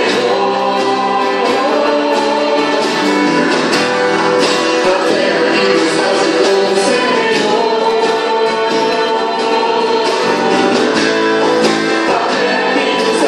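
Gospel vocal group singing with guitar accompaniment, the voices and instruments continuous and steady in level.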